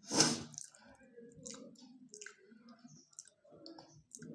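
Eating by hand at the table: a man chewing, with many small wet mouth clicks and soft squishing as his fingers work rice and egg curry on a steel plate. A short, loud noise comes right at the start.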